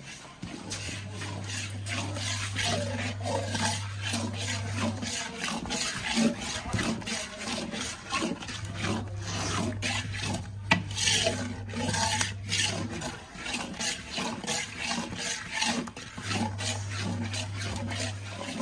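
Long metal stirrer scraping round the bottom of a large iron kadhai, making repeated rasping strokes as flour roasting in ghee for panjeeri is kept moving so it does not stick to the pan.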